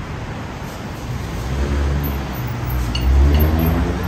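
Street traffic noise, with a motor vehicle's engine rumble growing louder from about halfway through and peaking near the end as it passes close by.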